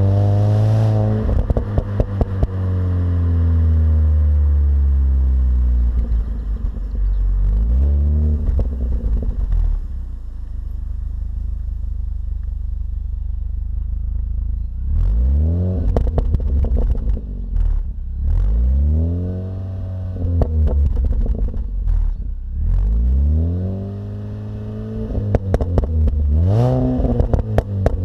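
Mini Cooper S R53's supercharged 1.6-litre four-cylinder engine on its stock exhaust. Its pitch falls slowly over the first several seconds, then it is blipped up and down repeatedly in the second half, several quick revs in a row, with sharp crackling clicks throughout.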